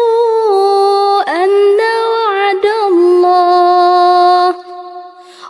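A woman's voice reciting the Qur'an in a melodic style, holding long notes with ornamented turns and stepping down to a lower held note about three seconds in. The voice stops about four and a half seconds in for a short breath pause.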